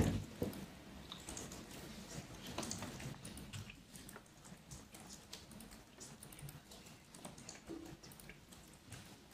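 Typing on a computer keyboard: irregular light key clicks as shell commands are entered. A brief loud thump comes right at the start.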